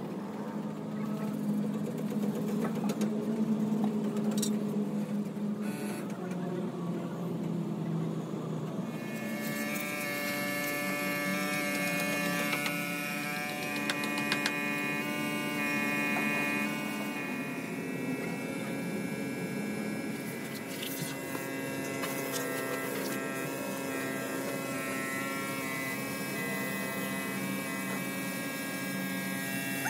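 A steady machine hum with several held tones, growing fuller and brighter about nine seconds in.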